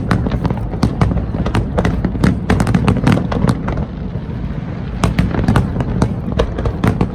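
Aerial fireworks bursting in rapid succession, a dense run of sharp cracks and bangs over a steady low rumble, thinning for about a second in the middle before picking up again.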